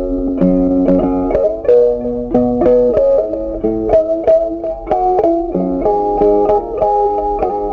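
Background instrumental music: a plucked-string melody of quick, short notes over chords.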